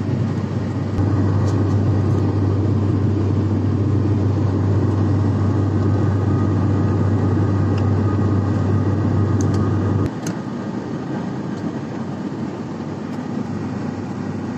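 Airliner cabin noise in flight: a steady engine and airflow drone with a strong low hum. It is louder from about a second in until about ten seconds in, then drops to a quieter steady drone.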